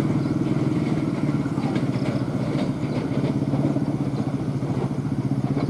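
An engine running steadily, a low pulsing drone with an even pitch, with a few faint clicks a couple of seconds in.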